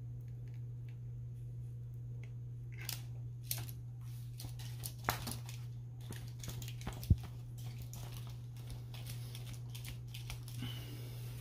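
Handling noises from hand work on a subwoofer assembly: scattered small clicks and rustles, with one sharper click about seven seconds in, over a steady low hum.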